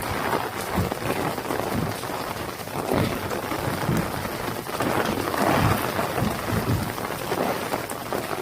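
Heavy summer rain falling steadily, with irregular low rumbles swelling and fading every second or so.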